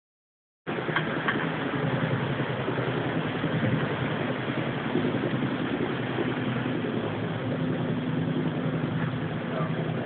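Steady low droning hum with a rushing hiss over it, like a distant helicopter, heard through a phone's microphone. It is one of the unexplained 'strange sounds' in the sky, with no visible source.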